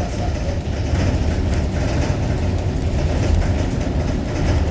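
Wind buffeting the microphone: a steady, heavy low rumble.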